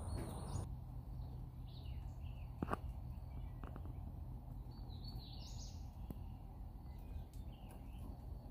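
Quiet outdoor ambience: a steady low rumble, with faint bird chirps now and then and a single light click a little under three seconds in.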